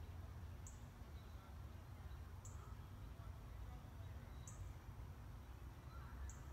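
Quiet outdoor ambience with a low steady rumble and a short, high-pitched chirp repeating about every two seconds.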